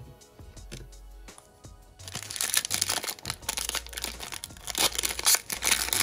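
Foil trading-card pack being crinkled and torn open by hand, a loud dense crackling that starts about two seconds in. Quiet background music with a steady bass runs underneath.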